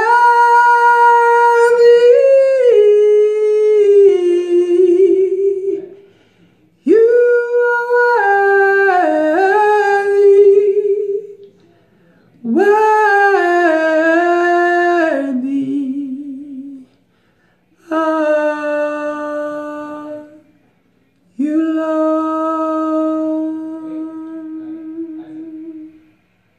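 A man singing unaccompanied worship in five long phrases with short pauses between them. The held notes step down in pitch and waver into vibrato at the phrase ends.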